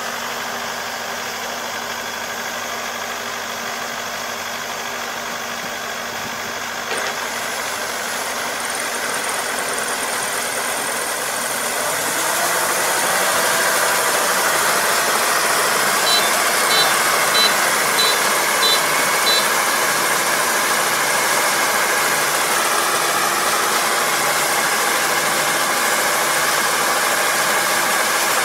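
Four-row combine harvester's engine running steadily; about twelve seconds in it picks up speed and gets louder. A few seconds later, six short high beeps sound in quick succession over the engine.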